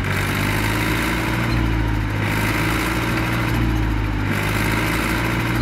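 Small tractor's engine running steadily, labouring as the tractor works in deep mud with a trailer hitched behind.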